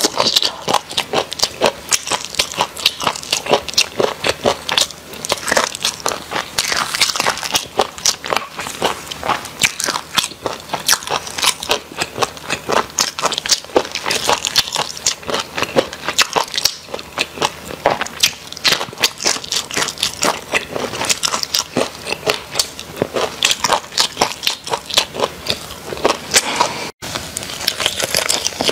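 Close-miked eating: a steady run of crisp crunches and chewing, about three or four a second, as pieces of crispy chili-fried food are bitten and chewed, with a brief break near the end.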